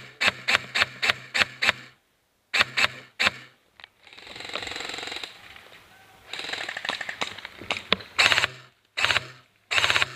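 Airsoft gun firing: a quick string of shots about four a second, then three more, followed by a longer rattling stretch and several short bursts near the end.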